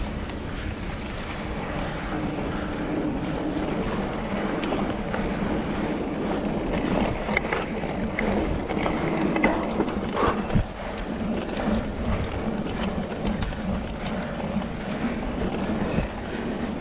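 Wind rushing over the microphone of a mountain-bike action camera while the bike's tyres roll over a dirt trail, a steady rough noise. Around the middle come a few sharp rattles and knocks from the bike jolting over bumps.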